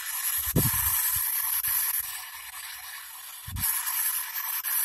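P-SB7 spirit box sweeping through radio frequencies, giving a steady hiss of static with brief dropouts as it jumps between stations. Two low thumps come through, about half a second in and again at about three and a half seconds.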